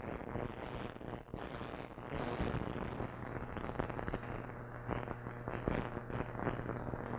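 Small heated ultrasonic cleaner running, a steady hum under a dense crackling hiss from the water and dish detergent in its tank. The ultrasound is pulsing rapidly through the liquid to break the dirt out of a lawn mower carburetor.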